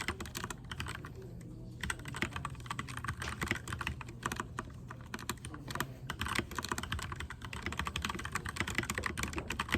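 Typing on a Keychron K4 v2 mechanical keyboard: fast, irregular clacking of keys, with a brief pause about a second in before a steady run of typing.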